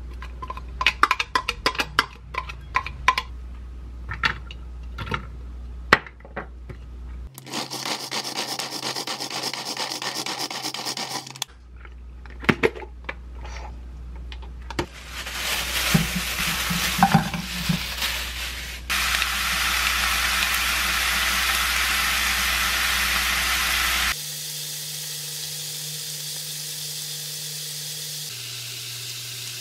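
Kitchen food-prep sounds: a quick run of sharp taps and scrapes as chopped vegetables are emptied from a plastic hand chopper into a bowl, then stretches of steady hissing noise. In the last few seconds, sliced pork is sizzling in a frying pan.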